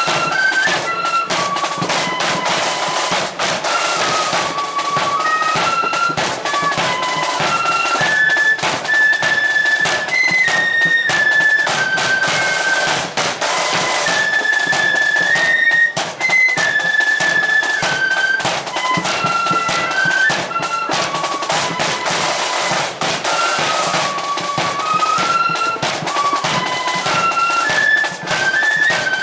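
Marching flute band playing a tune in unison on flutes, the melody moving in held steps, with drums beating steadily under it.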